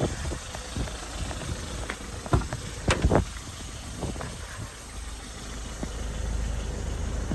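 A Peugeot Partner van's driver's door is unlatched and opened: a click about two seconds in, then a louder cluster of clicks and knocks a moment later. A low, steady rumble runs underneath and grows a little louder near the end.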